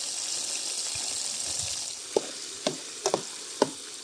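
A steady sizzling hiss, then from about halfway a string of sharp knocks, roughly two a second.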